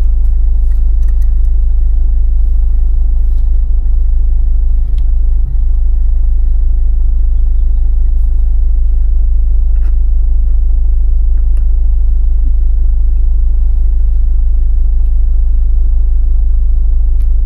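Ford Galaxy 1.6 diesel engine idling, heard inside the cabin as a steady, loud, deep rumble, with a few faint clicks over it.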